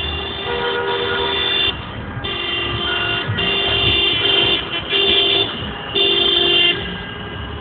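Car horns honking in celebration: about five long blasts one after another, over the low rumble of traffic.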